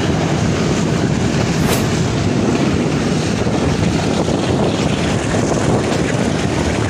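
Steady rushing noise of a passenger train running at speed, with wind rushing past a phone held out of an open window.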